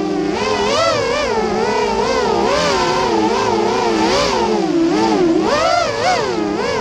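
FPV racing quadcopter motors whining, the pitch wavering rapidly up and down with the throttle.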